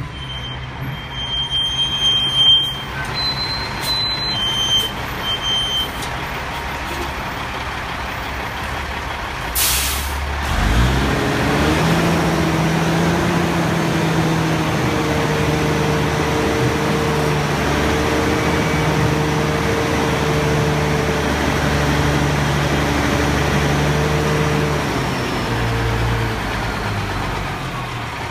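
Heavy diesel engine of a Peterbilt roll-off truck. A short air-brake hiss comes about ten seconds in. The engine then picks up to raised revs and holds there, its pitch stepping up and down a few times, as it drives the hoist that pulls the dumpster onto the truck.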